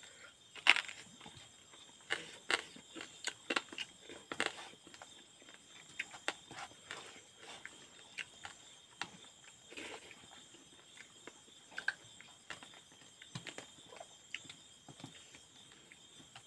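Someone eating rice by hand: chewing and lip smacks as short, irregular clicks, with fingers gathering rice on a steel plate. Insects chirr steadily and faintly underneath.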